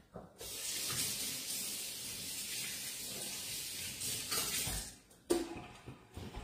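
Kitchen sink faucet running in a steady hiss for about four seconds while a fork is wetted under it, then shut off. A short knock follows.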